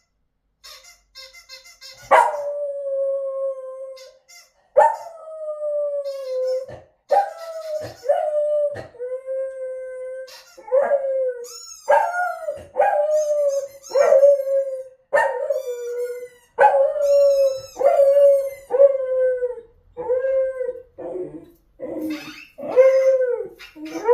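A dog howling in a long series of short howl-barks, about one a second, each dropping in pitch and then holding; a nervous reaction to a squeaky toy. A few short squeaks come before the first howl.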